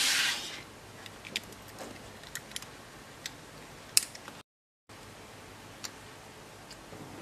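Short rustle of handling at the start, then sharp plastic clicks and taps as LEGO Technic motor cable plugs are pressed onto the battery box and a gear is fitted to a motor. The loudest click comes about four seconds in, and the sound drops out completely for a moment soon after.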